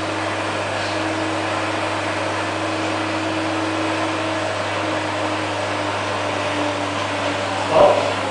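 Welding equipment running: a steady low hum under an even hiss, with a short louder sound near the end.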